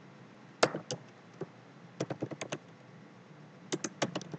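Computer keyboard typing: two single keystrokes, then two quick runs of clicks.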